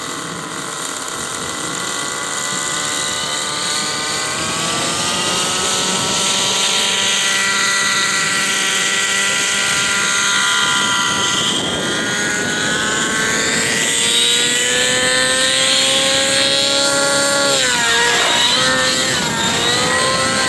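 A 90-size nitro RC helicopter (Edge Rave ENV) runs with its glow engine and rotor, the pitch climbing steadily as the head spools up and the helicopter lifts off. Near the end the engine note drops sharply and then wavers up and down as it flies.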